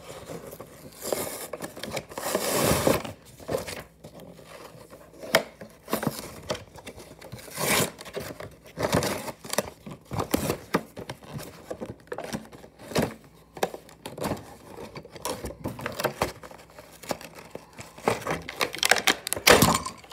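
Clear plastic toy packaging being opened by hand: irregular crinkling, tearing and scraping of the plastic box and tray, with scattered sharp clicks.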